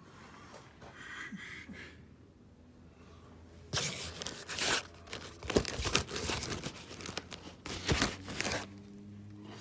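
Crackling, crumpling rustle of a hand pressing and rubbing against a yellow foam lining on a metal frame, loud from about four seconds in until shortly before the end, with a fainter rustle about a second in.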